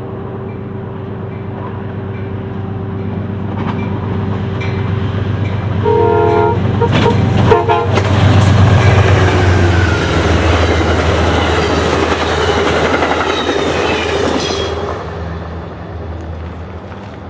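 Amtrak GE Genesis P32AC-DM diesel locomotive hauling a passenger train, approaching at speed and sounding short horn blasts about six and seven seconds in. Engine and wheel noise peaks as it passes, then fades as the coaches roll by.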